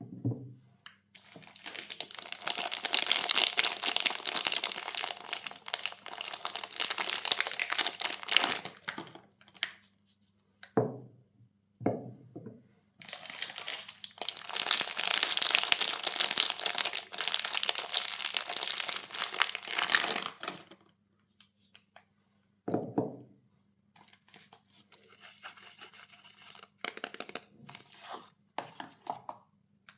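Soap wrappers being crinkled and torn open in two long spells, then more quietly with small clicks near the end. A few soft thuds come in between.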